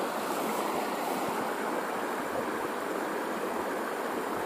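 Shallow river current running over a gravel riffle, a steady rushing of water.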